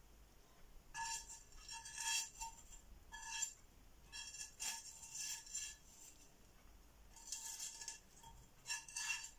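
A metal utensil scraping and clinking against a ringing dish in several short bouts, working at food that is stuck on.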